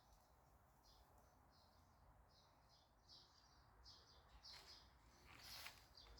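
Faint bird chirping: short high chirps repeating about two to three times a second.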